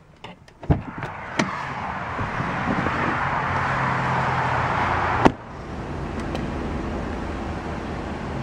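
2011 Chevrolet Tahoe rear side door unlatched with clicks and a knock and swung open, then a rushing, rustling noise while someone climbs out. The door shuts with a sharp knock about five seconds in, followed by steady low outdoor traffic hum.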